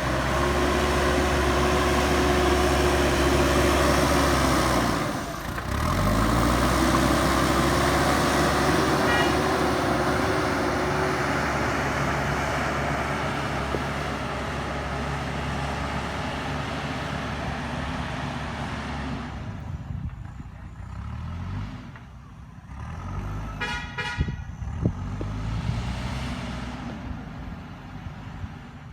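JCB backhoe loader's diesel engine running under load. It drops briefly about five seconds in, then climbs back up in pitch and settles. A short horn toot sounds about four-fifths of the way through.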